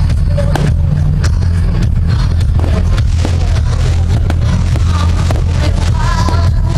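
Fireworks going off in a quick, uneven run of bangs and crackles, with music playing under them and a sung or melodic line coming in near the end.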